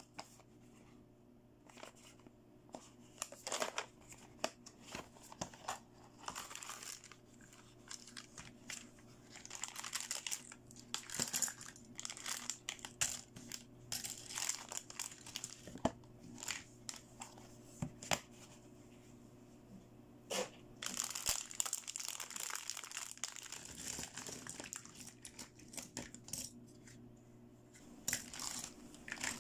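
Hands handling small hard-plastic toy doll accessories and a plastic toy carry case: scattered clicks and light clatter of plastic on plastic, with stretches of crinkling from a plastic bag.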